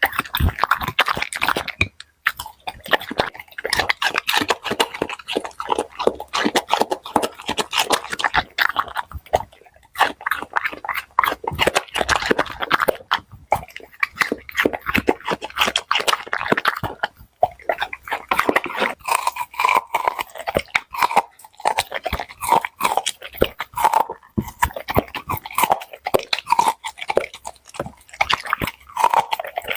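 Small dog chewing and crunching a whole raw cucumber, a rapid run of crisp bites with short pauses now and then.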